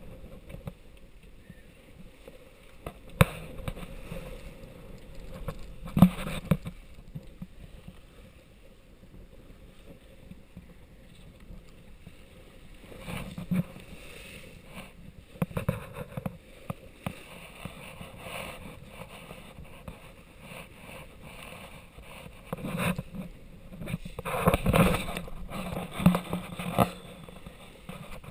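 Sailing yacht's hull driving through choppy sea: water rushing and splashing along the side. Several sharp knocks stand out, the loudest about three and six seconds in, with a cluster near the end.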